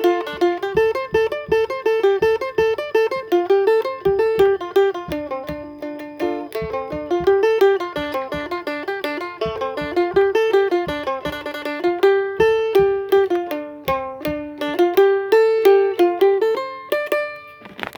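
Phin, the Lao plucked lute, playing a fast picked melody in D minor over a sustained lower note. The notes thin out near the end as the phrase closes.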